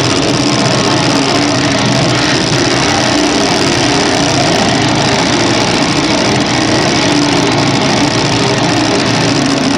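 Loud, steady machine-like droning noise with a rough buzz, running evenly without pauses or breaks.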